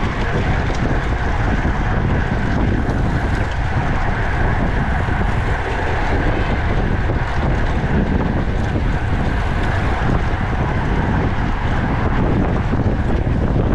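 Wind rushing over the microphone of a bicycle racer's action camera at race speed: a steady, loud rush that stays even throughout.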